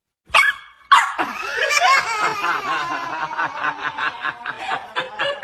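A short, sharp burst, then a long run of laughter in quick, even pulses, about five a second.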